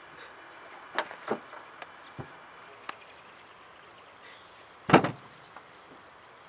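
Bags and a cloth bundle being handled on a car's rear deck: a few sharp clicks and taps, then one louder brief rustling thump about five seconds in, over a faint steady background hiss.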